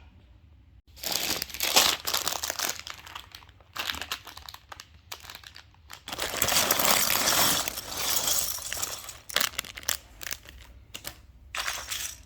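Plastic parts bags from a LEGO set crinkling and tearing open, in irregular bursts that begin about a second in.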